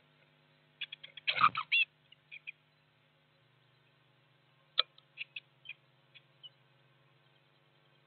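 Blue tits in a nestbox calling with short, high chirps: a louder flurry of calls about a second in, and another run of chirps about five seconds in.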